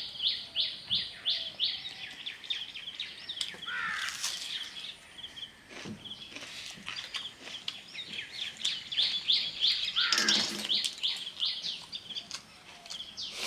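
Small birds chirping: runs of short, quickly repeated high chirps, loudest at the start and again about two-thirds of the way through, with a couple of falling calls. A few brief clicks and soft wet sounds of hand-eating watery rice come in between.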